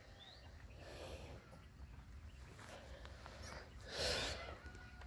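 Cattle blowing out air in three short breathy puffs, the last, about four seconds in, the loudest.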